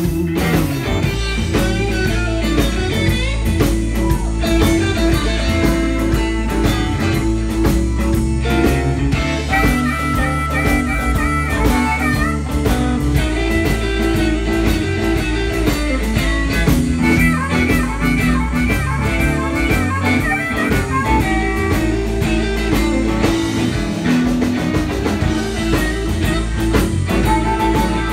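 Live blues band playing: electric guitars over bass and a drum kit.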